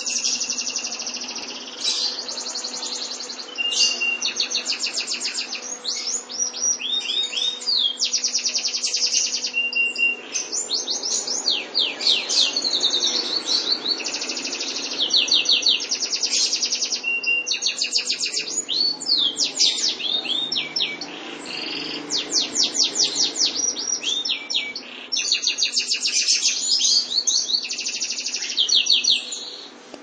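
White canary singing a long, near-continuous song of fast trills and rapidly repeated sweeping notes, with a few short held whistles and brief pauses between phrases.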